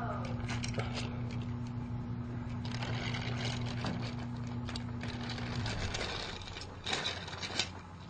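Battery-powered toy train's small electric motor whirring steadily, with clicking and rattling. The motor cuts off a little under six seconds in, and a few sharp clicks or knocks follow near the end.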